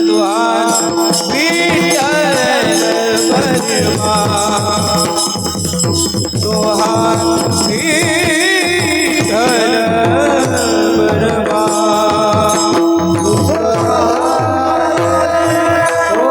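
Devotional kirtan music: a voice singing a wavering, ornamented melody over a steady held tone, with drum strokes from the mrudang and a jingling rattle keeping an even beat.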